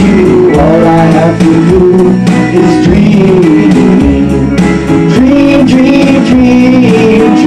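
Two men singing together into handheld karaoke microphones over a loud karaoke backing track.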